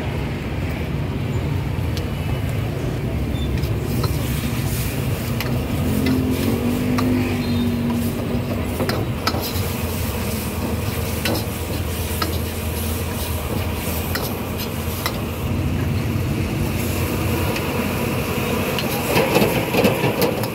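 Street-food stall ambience: a steady low rumble of passing traffic, with scattered clinks and taps of cooking utensils throughout.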